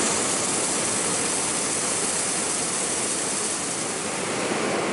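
Hot-air balloon's propane burner firing in one long, steady roar.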